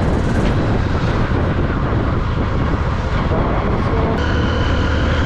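Motorcycle engine running steadily while riding, with wind rushing over the rider's microphone.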